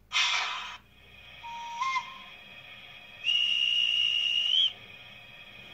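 Sound decoder in a Märklin HO-scale model electric locomotive playing its effects through the model's small speaker: a short hiss at the start, a brief whistle note that steps up slightly, then a longer steady high whistle of about a second and a half that rises slightly just before it cuts off.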